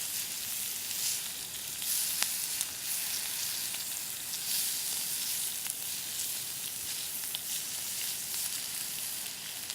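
Sukiyaki sizzling on a thick iron griddle: a steady frying hiss with small scattered pops and crackles.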